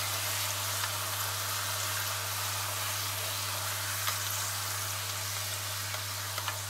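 Thin sheet of hojuela dough deep-frying in hot oil in a pan, a steady sizzle, with a few faint clicks as a metal slotted spoon ladles oil over it. A low steady hum runs underneath.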